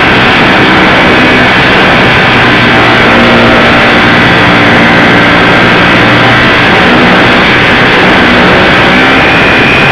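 Electric motor and propeller of a ParkZone Super Cub model plane heard from its onboard camera in flight: a loud, steady drone with a few held tones, mixed with rushing wind on the microphone.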